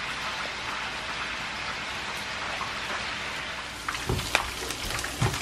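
Hot oil sizzling steadily as chicken pieces fry. About four seconds in, a spatula starts stirring sliced onion in a wok, adding knocks and scrapes against the pan.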